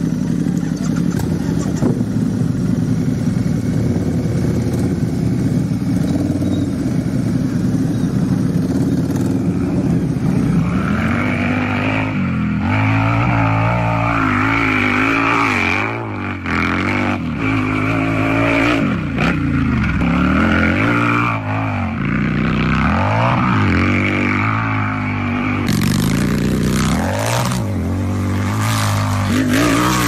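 Harley-Davidson V-twin motorcycle engine running at a steady pitch for about ten seconds, then revved up and down again and again.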